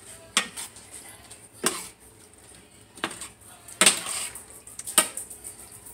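Metal utensils clinking against stainless steel cooking pots: a series of sharp clinks about a second apart.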